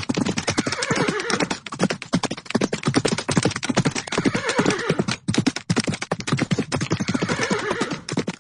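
Stampede of galloping horses: a dense, fast drumming of many hoofbeats, with a horse whinnying three times, about three seconds apart.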